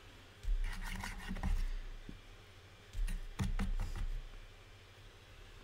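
Clay being scored and worked with a hand tool: scratching and scraping on the clay with low knocks on the tabletop, in two spells of about a second each.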